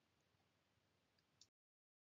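Near silence: faint room tone that drops out to dead silence about one and a half seconds in.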